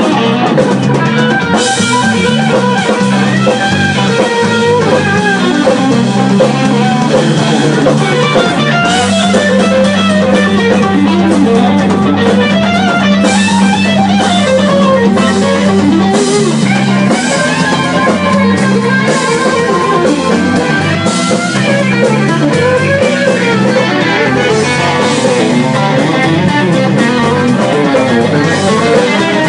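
Live blues band playing loudly: two electric guitars over a drum kit, with a guitar line bending and weaving above a steady low accompaniment.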